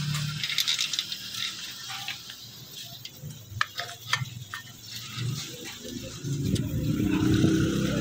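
Small metal motorcycle parts and hand tools being handled and fitted: scattered light clicks and rattles over low, uneven handling noise.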